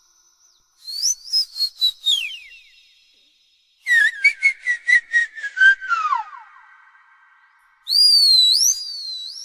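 Puppy whimpering and yelping in high-pitched, whistle-like cries. Two quick runs of short yips slide down in pitch at their ends, and a longer whine rises and falls near the end.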